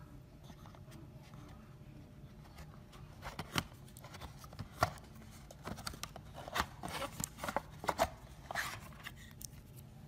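Handling noise from unpacking a video doorbell: sharp clicks, taps and light rustles of the unit, its silicone cover and the cardboard box and plastic tray, bunched between about three and nine seconds in, over a faint low hum.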